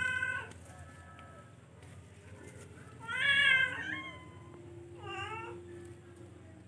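Charcoal F1 hybrid cat meowing three times: one call right at the start, a louder, longer one about three seconds in, and a short, fainter one about five seconds in.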